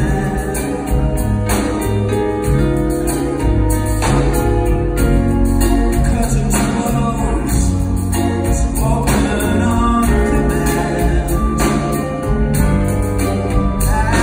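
Live band playing through a concert sound system, heard from the audience: keyboard, bass and drums, with cymbal or tambourine hits about every second.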